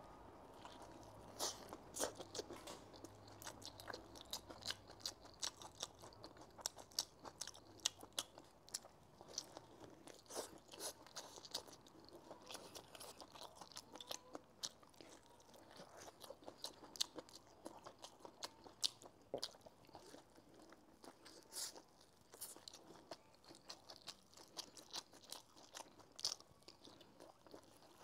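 Chewing a mouthful of Chinese spring pancake rolled around stir-fried shredded potato and roast duck: many short, irregular crunchy clicks and smacks.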